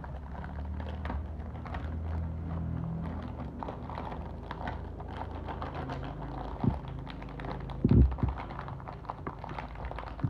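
Plastic cookie wrapper being torn open and handled: a run of small crinkles and clicks, with two dull thumps about seven and eight seconds in. A low steady hum sits underneath.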